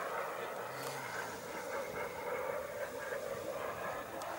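RC model jet in flight, its engine heard from a distance as a steady, fairly faint sound.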